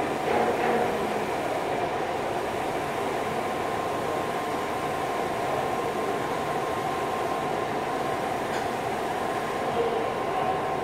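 TIG welding arc burning steadily on a 6-inch stainless steel pipe as the cup is walked along the joint: an even hiss with a thin steady whine through it, over steady workshop background noise.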